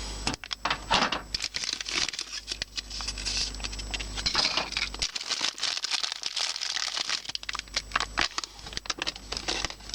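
Toy packaging being handled, crinkling and tearing in dense, irregular crackles as a blind-box figure is unwrapped.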